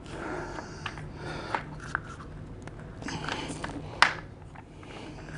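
Office chair's five-star base being handled while a caster wheel is pushed back into the end of a leg: scattered light clicks and knocks, with one sharper click about four seconds in.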